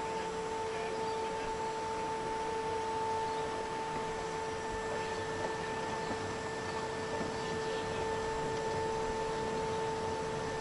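Electric drive of a 24-volt battery-powered 5-inch gauge model tram whining at one steady pitch as the car runs along, over a steady hiss.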